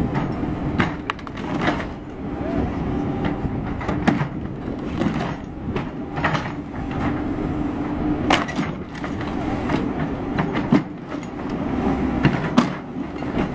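JCB backhoe loader's diesel engine running with a steady drone while its bucket crushes wooden speaker boxes: repeated sharp cracks and crunches of splintering wood, about ten times over.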